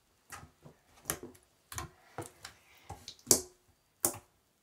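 Thick, glossy slime being poked and squeezed by hand, giving a series of irregular sharp pops and clicks, the loudest about three seconds in.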